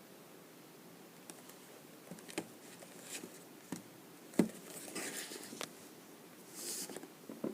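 Packaging handled by hand during an unboxing: scattered clicks and taps, one sharper knock about four and a half seconds in, and two short spells of rustling.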